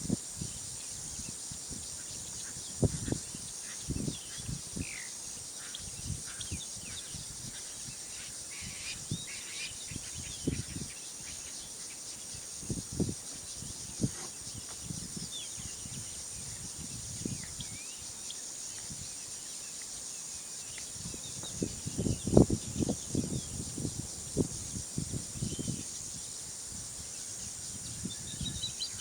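Steady high drone of insects with occasional faint bird chirps, broken by irregular low thumps and scuffs that bunch together about two-thirds of the way through.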